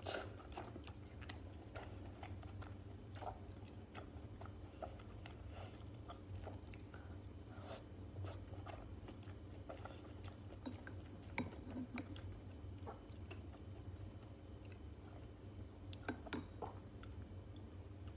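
Close-miked chewing and biting of stuffed cabbage rolls, with scattered wet clicks and smacks of the mouth, over a faint steady low hum.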